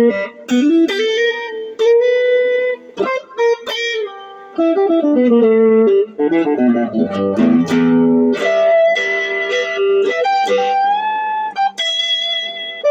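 Electric guitar played through a Fender Vibro Champ Reverb 5-watt amp with an Ibanez TS9 Tube Screamer overdrive pedal: a blues line of single notes with string bends and held notes.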